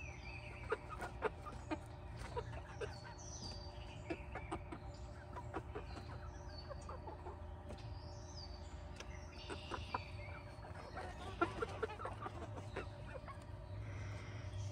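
Backyard hens clucking quietly in short scattered notes, with a few short falling high-pitched chirps here and there.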